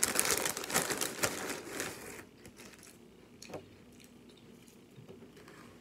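Close, crisp crunching and crinkling for about two seconds as spicy queso crackers are chewed and the crackers' plastic bag is rustled, then a single light click about three and a half seconds in.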